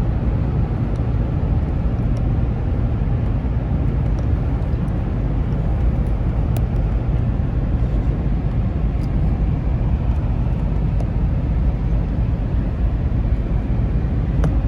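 Steady low rumble of a car on the move, engine and road noise heard from inside the cabin, with a few faint clicks.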